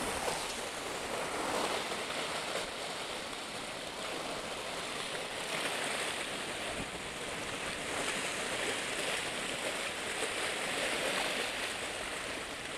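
Sea waves washing against the concrete tetrapods of a breakwater: a steady rushing surf that swells and eases slowly.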